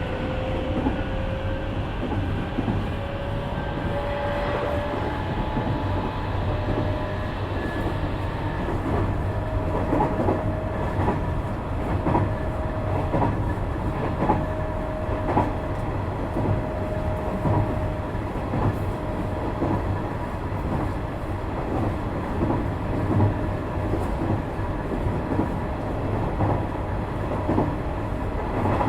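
Nishitetsu 3000 series electric train running, heard from inside a motor car: a steady rumble with clicks from wheels crossing rail joints and a faint motor whine that rises a little in pitch in the first few seconds.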